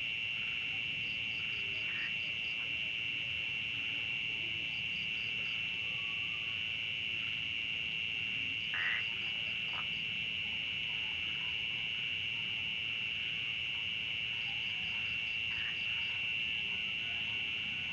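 Chorus of frogs and insects after rain: a steady high-pitched trill, with a short run of rapid pulsed calls repeating every few seconds and a few brief lower calls.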